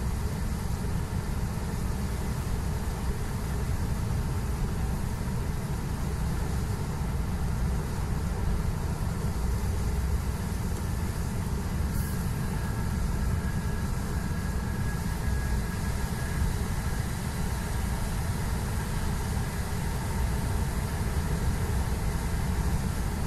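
Steady low rumble of a semi-truck's diesel engine and tyres on a wet highway, heard from inside the cab. One sharp click about halfway through.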